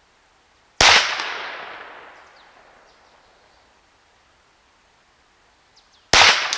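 Two shots from a .22 PCP air pistol built on a Huben K1 action, fired unregulated at high power, about five seconds apart. Each is a sharp crack that fades out over a second or more.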